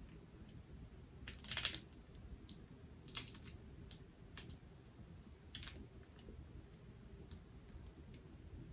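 Boiled crawfish shell being cracked and peeled by hand: a scatter of small crackles and clicks, the loudest cluster about one and a half seconds in.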